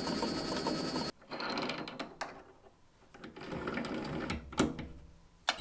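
Metal lathe running while a hand-held tap threads the spinning workpiece; the running sound cuts off abruptly about a second in. Then come quiet handling sounds with a few sharp metal clicks and knocks as a steel rod is fitted between the lathe chuck and the tailstock centre.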